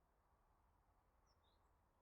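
Near silence: faint outdoor background hum, with two brief high small-bird chirps about a second and a half in.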